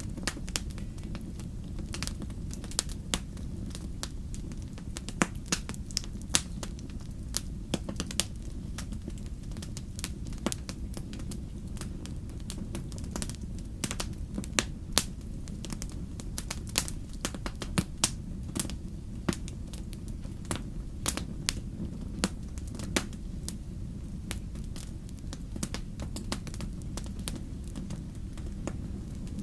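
Wood fire in a fireplace crackling, with irregular sharp pops and snaps over a steady low rumble of burning.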